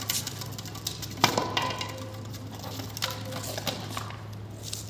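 Scattered sharp clicks and crackles of a plastic bottle being handled on concrete, with one louder knock about a second in and more clicking a little after the middle, over a steady low hum.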